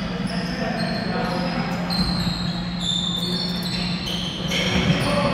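Sounds of an indoor basketball game in a large gym: shoes squeaking on the court, a ball bouncing and players' voices, over a steady low hum.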